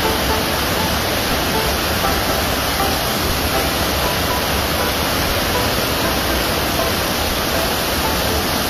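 Whitewater pouring over a low weir, a loud, steady rushing of water.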